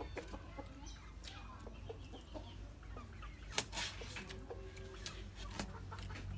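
Chickens clucking, with a few sharp clicks of a spoon against a plate, the loudest about halfway through.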